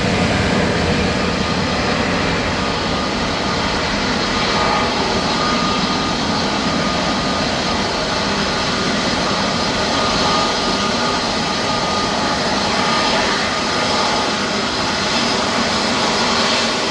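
Boeing 737 MAX 8's CFM LEAP-1B turbofan engines running close by: a steady, loud rush of jet noise with a faint whine.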